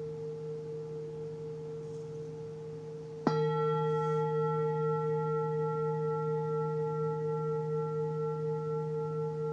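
Singing bowl ringing with a steady low hum and a few overtones, then struck once about three seconds in: a sharp attack, brighter overtones, and a louder ring that carries on with a slight slow waver.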